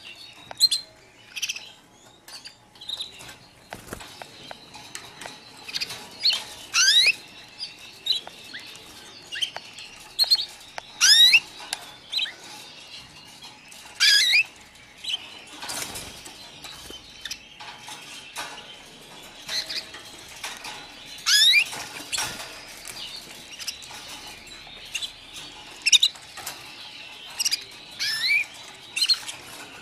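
A flock of white canaries calling: scattered short high chirps and several loud rising, sweeping calls, with a brief knock now and then.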